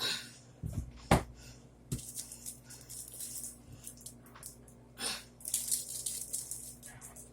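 Kitchen clean-up noises: a sharp knock about a second in and a lighter one near two seconds, then bursts of hissy rustling and scrubbing. A steady low hum from the running microwave lies underneath.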